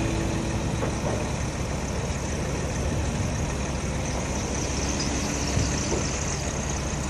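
Fire engine's diesel engine running steadily at idle, a low steady rumble under a constant rushing noise, beside a burning building.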